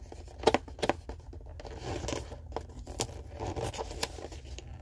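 Fingers prying and rubbing at a snug cardboard product box that is hard to open: scattered clicks and scraping of card on card.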